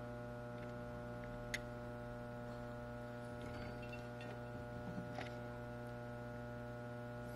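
Steady mains electrical hum with a stack of overtones, with two faint clicks, one about a second and a half in and one about five seconds in.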